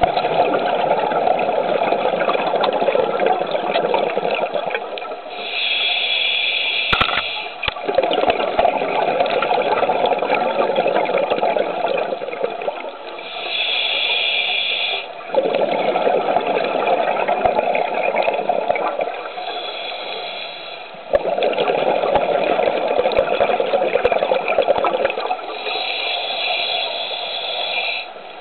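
A scuba diver's regulator breathing underwater. Long rushes of exhaled bubbles, several seconds each, alternate with short, higher hissing inhalations of about two seconds, in a slow, even breathing cycle.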